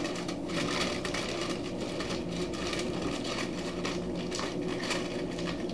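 Aluminium foil crinkling in irregular short crackles as it is folded over and crimped shut around a slab of pork spare ribs, over a steady low hum.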